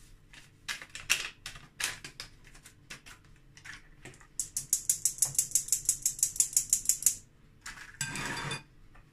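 Metal mesh sieve being tapped to sift flour and baking powder into a mixing bowl: scattered taps at first, then a fast even run of about ten clicks a second lasting nearly three seconds. Near the end, a short scraping noise as the sieve is set down on a plate.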